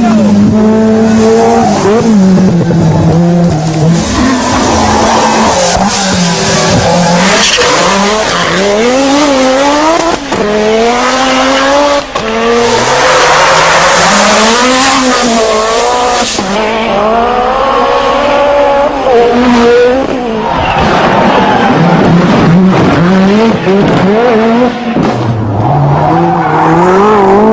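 Group B rally car engines revving hard, the pitch climbing and dropping again and again as they accelerate and change gear, with stretches of rushing noise over the top.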